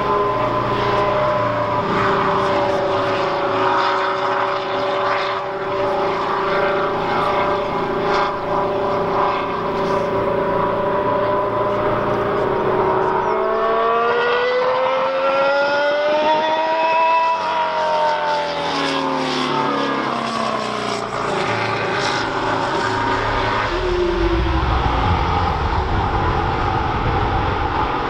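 Lotus Formula One car's engine running hard around the circuit, steady in pitch at first, then rising as the car approaches and dropping away after it passes, about two-thirds of the way in.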